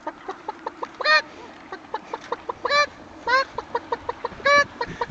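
A man imitating a hen's cackle with his voice: quick short clucks broken four times by a longer, drawn-out call.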